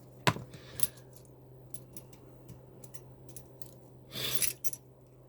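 Small metal objects being handled: a sharp click near the start, scattered light ticks, and a short metallic jingle about four seconds in, over a faint steady hum.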